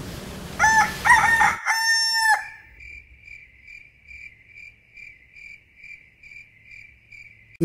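A rooster crowing once, a few short notes and then one long held note, followed by cricket chirping in an even rhythm of about two chirps a second.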